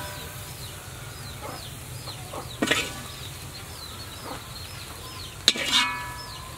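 A metal spoon clinks twice against a metal serving platter, about a third of the way in and again near the end, each clink ringing briefly, as sauce is spooned over cooked prawns. Chickens cheep over and over in the background, a run of short falling chirps.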